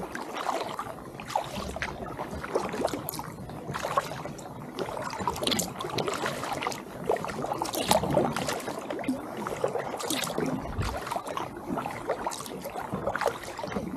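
Kayak paddle strokes in calm lake water: the blades dip and pull through the water, with irregular small splashes and drips coming off the paddle.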